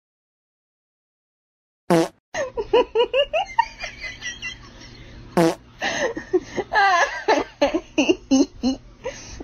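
About two seconds of silence, then a person speaking Chinese and laughing, broken by two short sharp sounds about two and five and a half seconds in.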